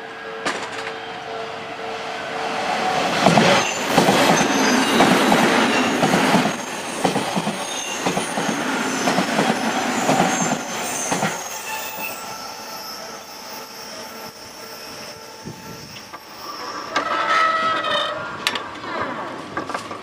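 Odakyu 2000-series electric commuter train passing close by: wheels clattering and squealing on the rails, loud for several seconds in the first half, then fading away. A shorter burst of squealing with ringing tones comes near the end.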